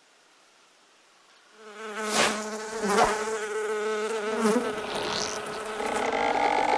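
A fly buzzing in flight, starting about a second and a half in; around six seconds in the buzz turns higher and louder.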